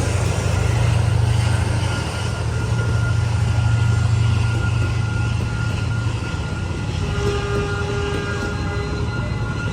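D19E diesel-electric locomotive hauling a passenger train: a steady low engine drone that fades about six seconds in, giving way to the sound of the train rolling, with faint thin tones near the end.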